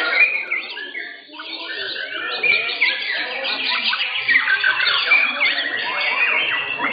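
Several white-rumped shamas (murai batu) singing at once: a dense tangle of rapid, overlapping whistles and chirps, with a brief lull about a second in.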